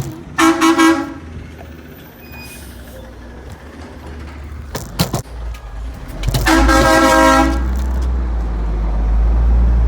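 Garbage truck horn honking twice: a short blast, then a longer one of about a second several seconds later. A low truck engine rumble rises under the second blast.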